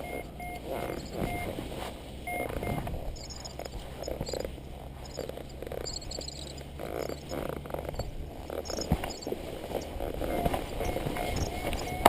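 Strong wind buffeting the microphone, rising and falling in gusts, with a few short faint high beeps in places.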